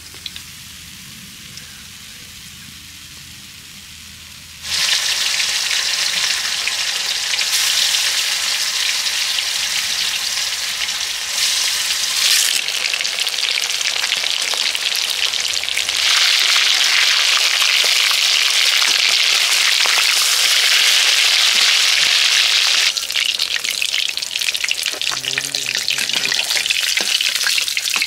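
Turmeric-marinated rohu fish pieces frying in hot oil in a kadai, a loud steady sizzle and bubbling that starts abruptly about five seconds in, after a quieter opening.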